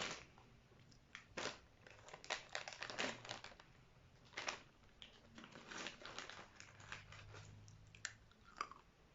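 Crisp banana chips being bitten and chewed, a run of irregular crunches in several bursts, with some crinkling of the snack packet.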